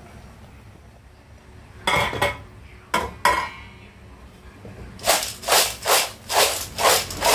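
Metal pot of boiled snails knocking against the gas stove a few times. Then it is shaken in a steady rhythm, about two tosses a second, the snail shells rattling against the pot so they cook evenly.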